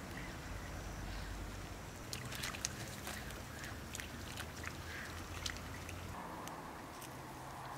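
A Japanese macaque walking through shallow pond water: a run of small, quick splashes and paddling sounds from its hands and feet, over a steady outdoor background noise.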